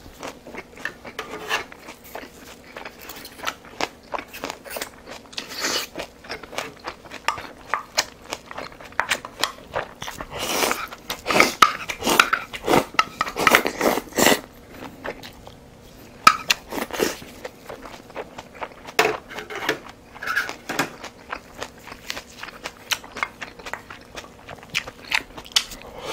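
Close-miked chewing and biting of food, mixed with sharp clicks of a spoon against small bowls. The sounds are busiest and loudest around the middle.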